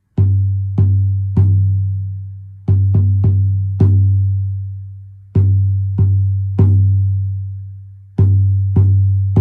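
Bead drum struck with deep, ringing booms that slowly fade, in a repeating pattern of three beats about half a second apart followed by a pause.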